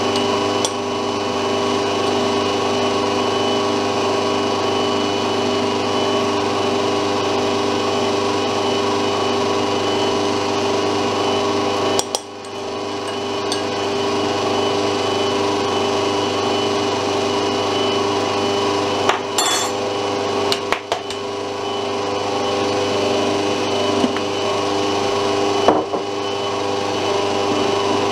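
Bosch stand mixer motor running steadily with a constant hum and whine, beating thickening sponge-cake batter as flour is mixed in. The sound dips briefly about twelve seconds in, and a few short knocks come later.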